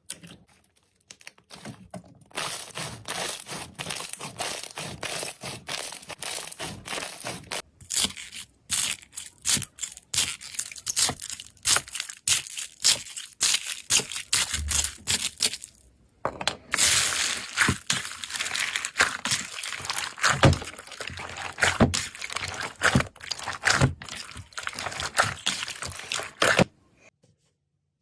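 Slime being squeezed and pressed by hand close to the microphone: dense crackling and popping made of many small clicks, stopping briefly twice.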